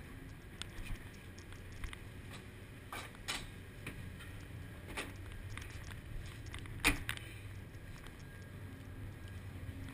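Steady low rumble of the ship underway at sea, with scattered footsteps and knocks on the steel deck, the sharpest knock about seven seconds in.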